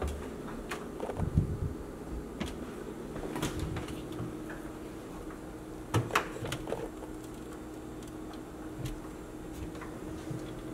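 Kitchen wall cabinet doors being opened and closed by hand: scattered light knocks and clicks, the loudest pair about six seconds in, over a steady low hum.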